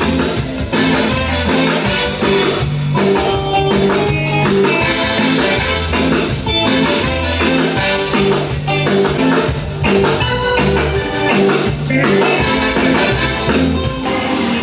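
A live reggae band playing, with drum kit, electric guitar, keyboard and a deep bass line.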